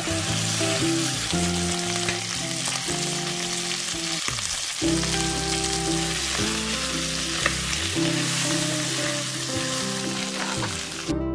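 Chicken livers sizzling as they sauté in hot oil in a nonstick pan until light brown, stirred with a spatula. The sizzle cuts off just before the end.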